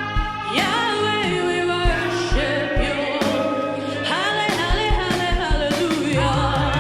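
Gospel worship music: singing voices over a band with keyboard and a steady drum beat.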